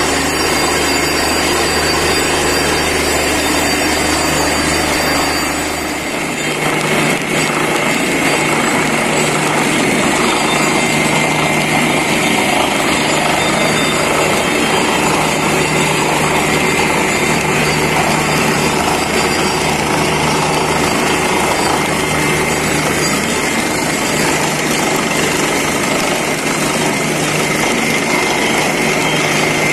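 Borewell drilling rig at work: its engine, air compressor and percussive drilling make a loud, steady machine din. About six seconds in the low drone drops away and the noise turns rougher.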